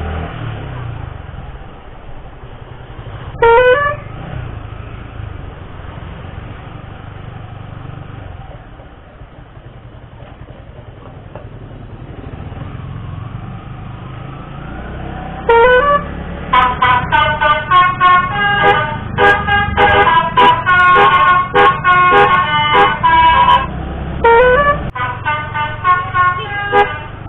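Basuri 'telolet' musical multi-tone vehicle horn: one short rising blast about three and a half seconds in, then after a stretch of engine rumble, a rising glide at about fifteen seconds that breaks into a rapid, loud melody of stepped notes.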